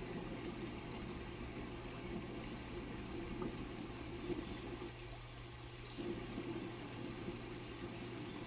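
Steady rain noise with a constant low hum under it, and a faint short high whistle about five seconds in.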